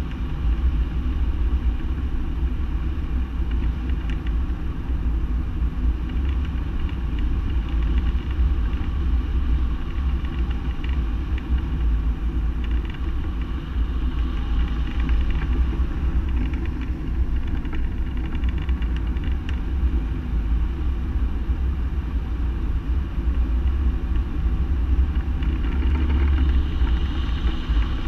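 Steady rushing and rumbling of airflow over a hang glider in flight, buffeting the wing-mounted camera's microphone.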